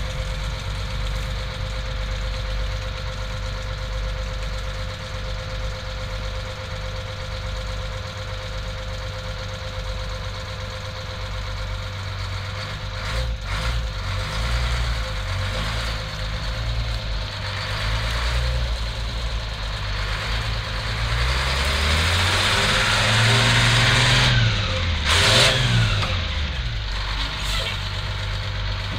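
Rear-load garbage truck's diesel engine idling steadily, then revved up and down several times in the second half, with a brief loud hiss near the end.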